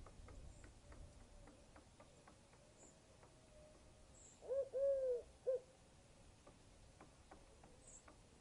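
Three short hooting calls in quick succession about halfway through, the middle one the longest, over faint scattered ticks.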